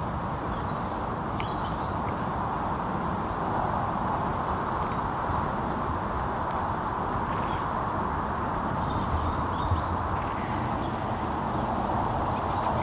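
Steady outdoor background rush with a few faint high chirps, and two soft knocks about nine seconds in.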